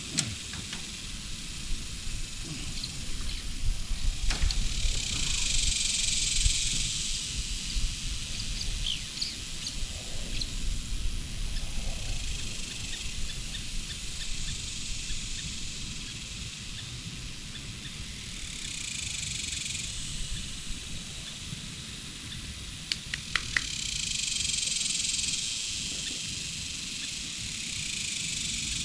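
Open-field ambience: a high, hiss-like insect buzz swells and fades several times over a steady low rumble, with a few sharp clicks now and then.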